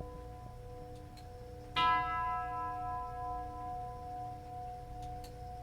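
Tubular chime bell of a c.1911 Winterhalder nine-tube grandfather clock, struck once by its hammer about two seconds in and ringing on with a long, slowly fading tone. The same note repeats at a slow, even pace, as in the clock's hour strike after the chime tune.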